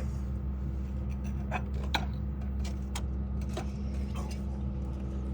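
Chevy HHR engine idling steadily, with a few scattered light clicks and knocks; the engine has a bad rod knock.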